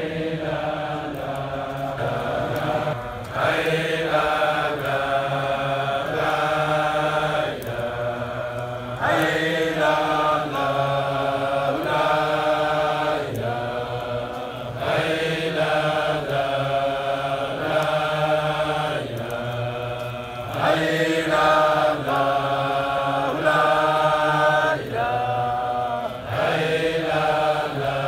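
A large congregation of men and women chanting a Sufi dhikr together in unison. Long, held melodic phrases rise and fall in pitch, and the chant repeats about every six seconds.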